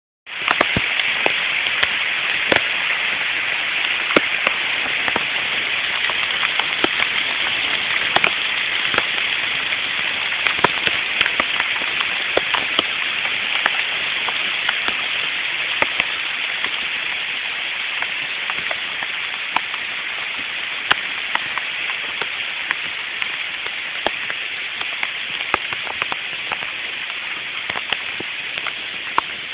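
Sleet falling and pattering on surfaces: a dense, steady hiss packed with countless sharp ticks of individual pellets striking, pretty noisy.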